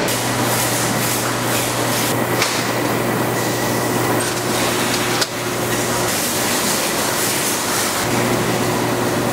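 Running machinery in a tennis ball factory: a steady loud hiss with a low hum underneath, which stops about six seconds in and comes back near the end.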